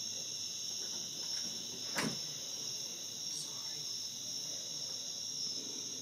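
Steady high-pitched chorus of night-singing insects, an unbroken drone in two high bands. A single sharp click about two seconds in.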